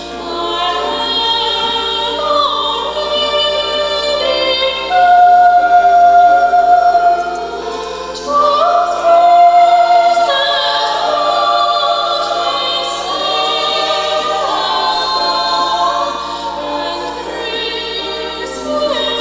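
Church choir singing a hymn, with long held notes that swell and fade.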